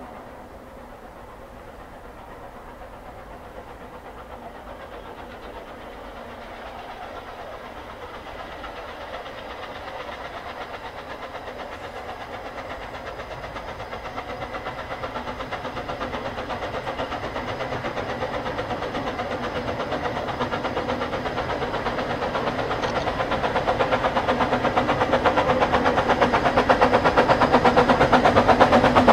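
Narrow-gauge steam locomotive working a train, approaching and growing steadily louder, with a fast regular pulsing in its sound.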